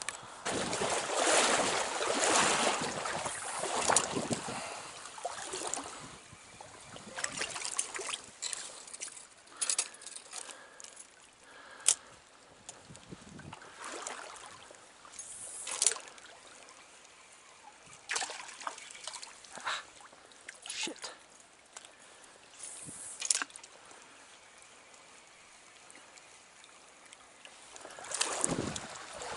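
Small trout stream trickling, with scattered splashes and sharp clicks, busiest in the first few seconds.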